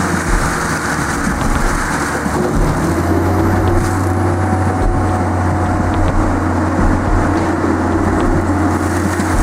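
Heavy machine's engine running steadily under load, a constant low drone with a rumbling noise and a few faint ticks.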